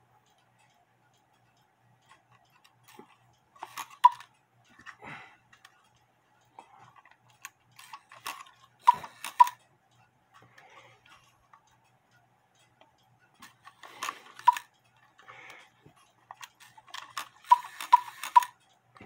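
Scattered metallic clicks and light rattles as a small cuckoo clock is handled and adjusted, its chains and movement parts clinking. They come in irregular groups, densest near the end.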